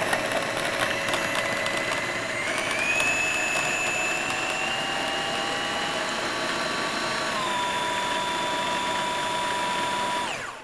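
Small electric food processor running steadily, puréeing a wet Thai curry paste, its motor whine stepping in pitch a couple of times as the load changes. It switches off shortly before the end.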